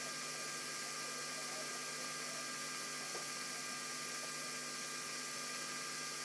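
Steady electrical hum with a constant hiss, and one faint brief chirp about three seconds in.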